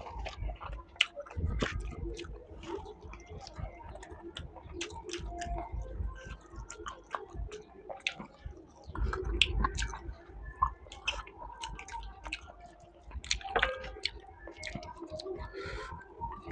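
Close-up chewing of someone eating a meal of rice, tomato rasam and spicy chicken fry: irregular wet mouth clicks and smacks, with a few louder moments.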